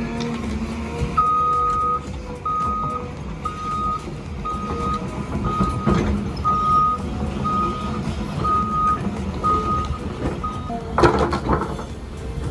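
Heavy machine's travel or backup alarm beeping about once a second, about ten beeps in all, over a diesel engine running, most likely an excavator. A loud clatter comes near the end, after the beeping stops.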